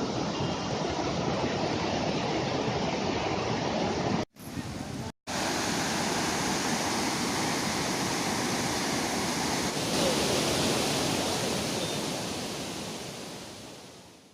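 Steady rushing water, an even noise with no distinct events. It breaks off briefly twice about four and five seconds in and fades out near the end.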